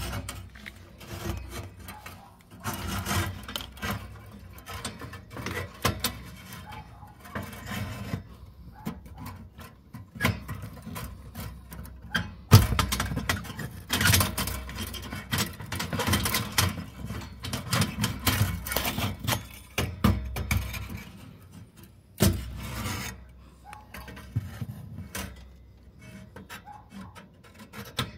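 Irregular scraping and rubbing as a hand and a copper thermocouple lead brush against the steel burner tubes of a gas boiler, in short uneven bouts, while a replacement thermocouple is being fitted.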